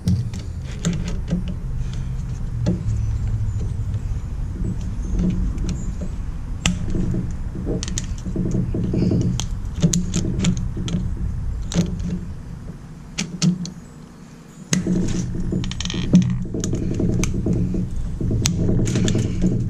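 Locking pliers twisting a PEX pinch (Oetiker) clamp off a brass fitting: irregular metallic clicks and clinks of steel on the clamp and fitting, over a steady low rumble. There is a quieter spell a little past the middle.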